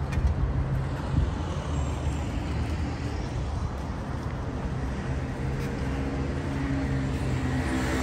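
Street traffic noise: the steady low hum of a motor vehicle engine running close by, over the general rumble of road traffic.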